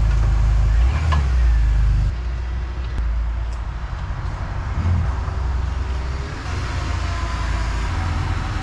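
A motor vehicle running: a steady, loud low rumble with a broad noise over it and faint rising and falling tones.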